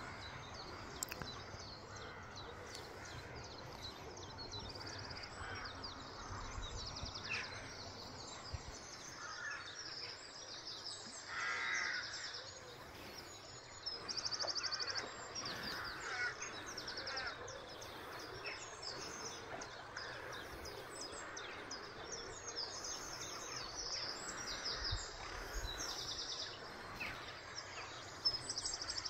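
Songbirds chirping and singing in short high trills throughout, over the steady rush of flowing river water.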